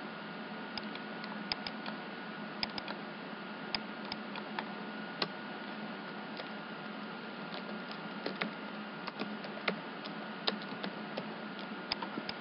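Computer keyboard keys and mouse buttons clicking at an irregular pace as text is deleted and retyped. A steady hiss and a faint hum from the microphone run underneath.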